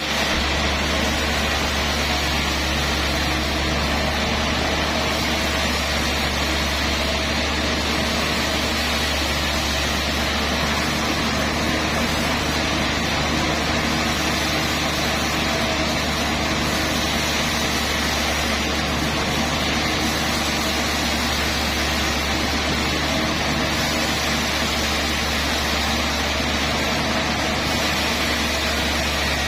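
Sawmill machinery running steadily, a deep even hum with mechanical noise over it and no distinct cuts or knocks.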